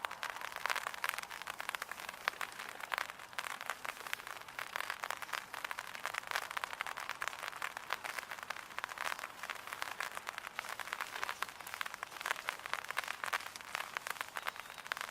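Light rain pattering: a steady, dense crackle of small drops.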